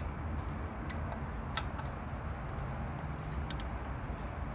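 A steel scribe tapping and scraping against an Allison 1000 transmission valve body as the stuck E-shift valve is worked out of its bore: a few sharp metal ticks, two about a second apart early and a couple close together near the end, over a steady low hum.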